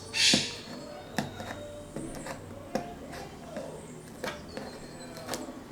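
Hands working at the seal of a cardboard hard-drive box: a brief scratchy rustle at the start, then scattered sharp clicks and taps as the packaging is picked and pried at.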